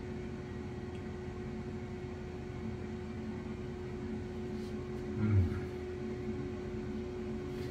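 Steady electric hum of a running kitchen appliance, carrying a couple of steady tones. About five seconds in comes a short, low hummed "mm" from someone chewing food.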